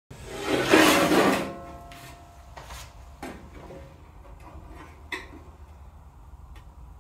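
Sheet metal scraping against the metal bandsaw table in one loud rasp about a second long, then three or four light clicks and scrapes as a hand tool works the sheet's edge.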